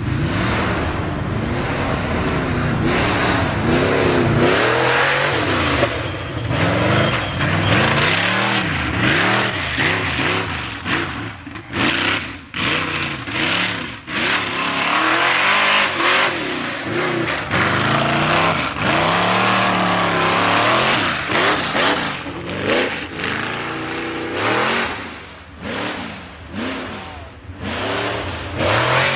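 Off-road race vehicle's engine revving hard and easing off again and again as it works through a slalom, the pitch swinging up and down, with short drops in level where the throttle is lifted.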